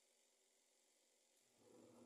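Near silence: room tone, with a faint steady hum coming in near the end.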